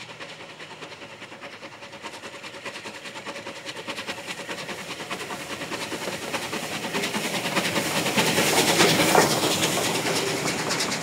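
Bulleid Battle of Britain class Pacific No. 34070 'Manston', a three-cylinder steam locomotive, working a passenger train with fast exhaust beats. It grows steadily louder on the approach and is loudest about nine seconds in as it passes, followed by the coaches running over the rails.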